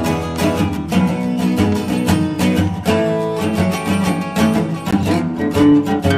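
Background music led by guitar, with a steady rhythm of plucked strums.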